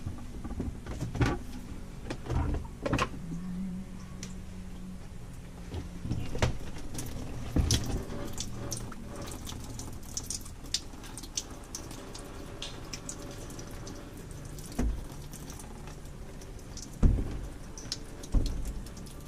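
Scattered knocks and clicks as a Dometic 310 RV toilet is worked loose and lifted off its floor flange, with water trickling and dripping and two heavier thumps near the end.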